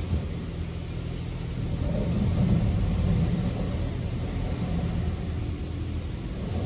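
Steady low hum and rumble of a WashWorld Razor touchless car wash's machinery, heard from inside the car between spray passes with no water hitting it. It grows slightly louder about two seconds in.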